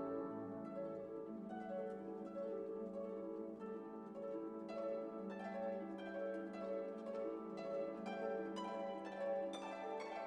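Background music: gentle plucked harp-like notes over a held low note.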